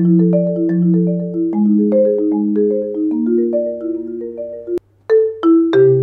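Marimba One marimba played with four Marimba One Round Sound yarn mallets: a steady stream of struck notes over a sustained low bass line. A little under five seconds in the playing breaks off briefly, then starts again with sharper, brighter strikes from a harder set of mallets (RSB5/3/3/1 in place of RSB5/5/3/3).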